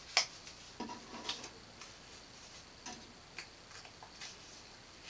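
Soft, irregular clicks and light rustles of paper and felt being handled as a paper pattern piece is pinned onto felt, about half a dozen small sounds spread unevenly.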